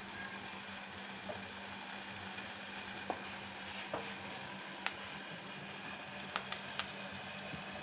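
Bread gulab jamun balls deep-frying in hot ghee in a kadhai: a steady sizzle with a sharp pop or crackle every second or so.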